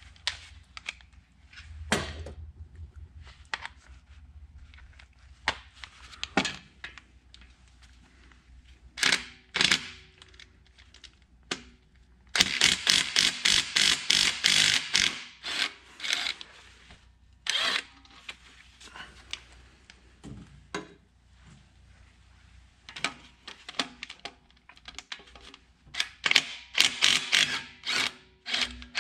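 Ratchet wrench clicking in quick runs as the 16 mm bracket bolts are backed out, between scattered clinks and knocks of steel tools and parts.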